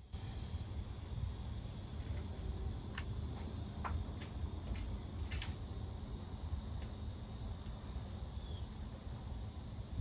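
Outdoor ambience: a steady high insect drone like crickets, over a low rumble of wind on the microphone, with a few faint ticks.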